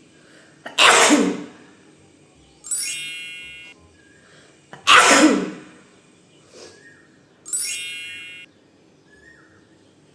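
A woman sneezing twice, about four seconds apart, the sneezes set off by sniffing chili flakes. Each sneeze is followed a couple of seconds later by a short bright chime that rings and fades.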